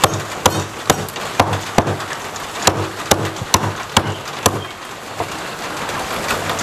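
Heavy meat cleaver chopping a raw duck into bone-in pieces on a thick wooden chopping block, about two sharp chops a second, stopping about four and a half seconds in. A couple of lighter knocks follow.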